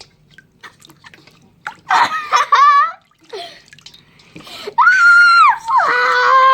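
A child squealing loudly: a short wavering squeal about two seconds in, then a long, high held squeal near the end. Small wet splashing noises of hands mixing slime in water come between the squeals.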